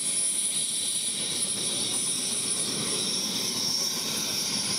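Small turbine helicopter running on the ground: a steady engine rush with a high-pitched turbine whine.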